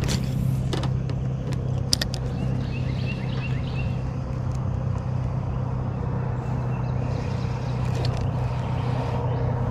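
A motor running with a steady low hum; a few sharp clicks sound over it, the loudest about two seconds in.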